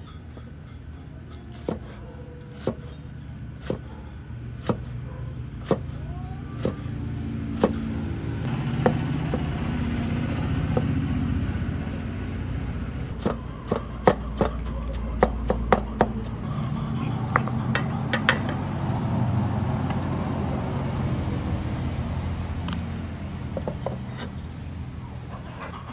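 Cleaver chopping raw potato on a wooden chopping board: single knocks about once a second, then quicker runs of chops about halfway through. A low steady rumble swells underneath for most of the middle.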